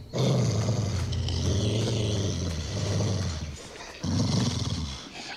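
Cartoon wolf growling: a long, rough, low growl lasting about three and a half seconds, then a shorter growl about four seconds in.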